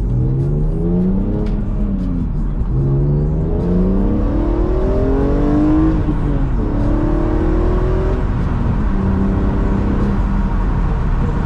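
BMW E46 M3's S54 inline-six, fitted with an Eventuri intake and a Status Gruppe muffler, accelerating through the gears as heard from inside the cabin: induction and exhaust rise in pitch, drop at two upshifts, then hold steady near the end.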